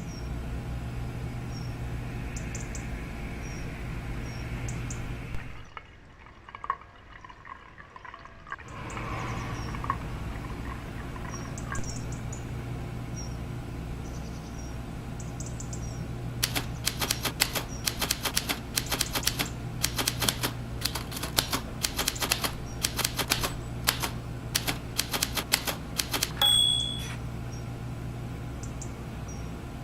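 Typewriter keys struck in a quick, irregular run of sharp clacks for about ten seconds in the second half, ending with a short ringing tone. A steady low hum runs underneath.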